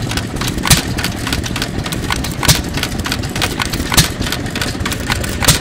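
A 1920s ARCO Type GH 2 hp hit-and-miss engine running at governed speed, giving a sharp firing bang about every second and a half, four in all. Fainter mechanical clicking comes between the firings while it coasts. The widely spaced firings are the sign of hit-and-miss governing: the engine fires only when its speed drops below the set speed, and it coasts with the exhaust valve held open in between.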